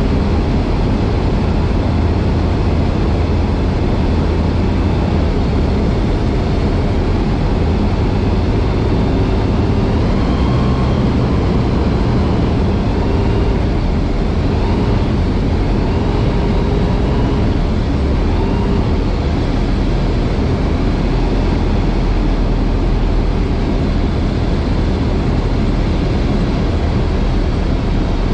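Skyranger microlight's Rotax 912 flat-four engine and propeller running steadily, mixed with airflow noise in the open cockpit, on final approach to land.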